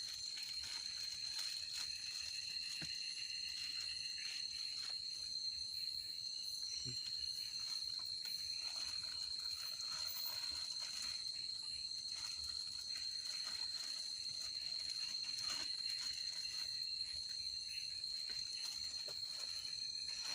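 Steady, high-pitched insect chorus from the forest, one unbroken shrill tone with fainter higher trills, over faint scattered clicks and taps.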